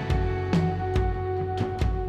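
Background music with held tones over a steady beat.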